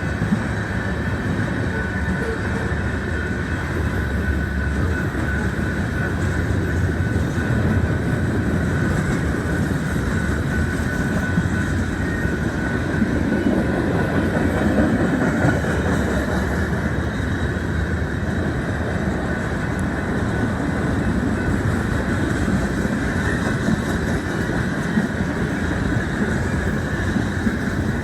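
Manifest freight train rolling past, its wheels running steadily over the rails with a continuous rolling noise and faint clickety-clack.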